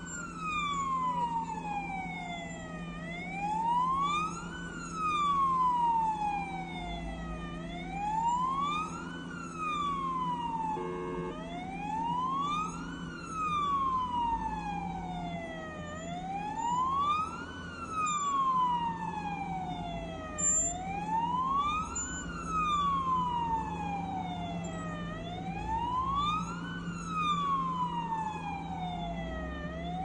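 Russian ambulance van's siren on a slow wail, each cycle rising quickly and falling more slowly, about every four and a half seconds. The sweep breaks off briefly about eleven seconds in. A steady low hum runs underneath.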